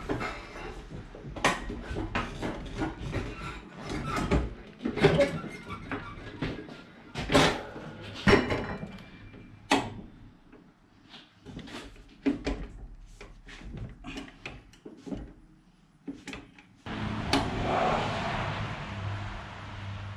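Irregular knocks, clicks and rattles of the tractor's metal seat and its slide rails being shaken and pushed while trying to make the seat slide. Near the end a steady rushing noise with a low hum comes in.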